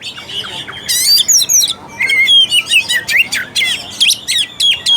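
Oriental magpie-robin (kacer) singing: a fast, varied run of whistled notes sliding up and down, with high chirps about a second in and a busier stretch of chattering from about two seconds on.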